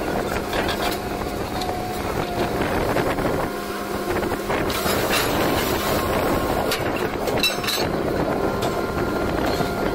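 Truck-mounted borewell drilling rig running steadily, its engine and machinery droning with a constant hum, with a few sharp knocks about halfway through.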